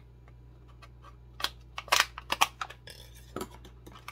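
Plastic blister packaging being handled and pulled open: a run of sharp plastic clicks and crackles starting about a second and a half in, with a short crinkle near three seconds.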